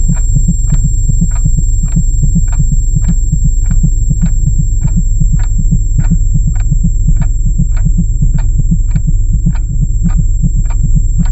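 Added sound-effect track: a deep, fast pulsing throb with a sharp tick about every 0.6 s, a little under two a second, like a countdown timer, over a faint steady high tone.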